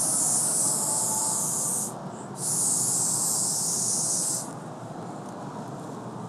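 Bark Art blow pen blown by mouth, spraying a mist of dye onto a dog's coat: two hissing bursts of about two seconds each with a short break between.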